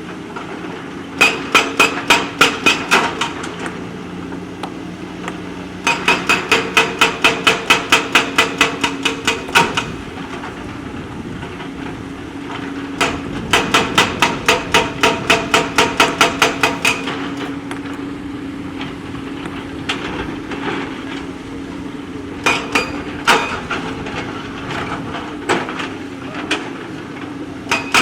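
JCB backhoe loader at work: its diesel engine runs steadily while the machine's tool strikes stone in rapid, evenly spaced hammering blows, about four or five a second, in three runs of several seconds and a few scattered strikes near the end.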